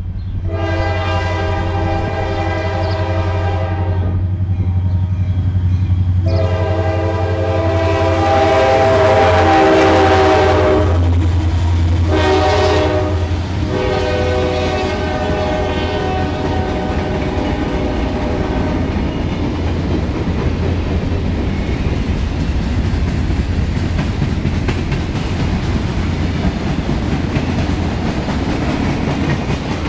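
Freight train's lead diesel locomotive sounding its air horn in three blasts, a long one, a longer one and a shorter one, with the low drone of its engines as it passes. After that the freight cars roll by in a steady rumble.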